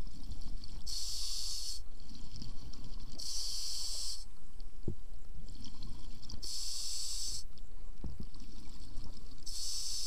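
Scuba diver breathing through a regulator underwater: a hiss with each inhalation, four breaths about three seconds apart, with the low bubbling rumble of exhaled air between them.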